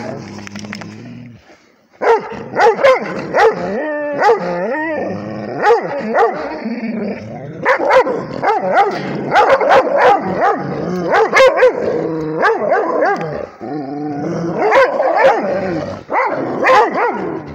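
Rhodesian ridgebacks barking over and over in quick volleys, with a short pause about a second in.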